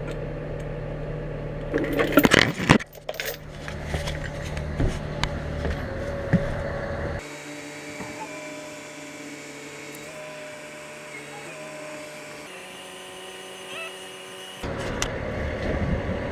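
Metal tool clanks against the engine and its fittings, a sharp cluster about two seconds in, over a steady background hum. About seven seconds in the sound changes abruptly to a quieter, steady whine-like hum, and the louder hum returns near the end.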